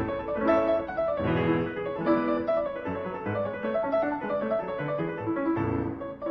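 Classical piano music: quick runs of notes over deep bass chords struck at the start, about a second in and again near the end.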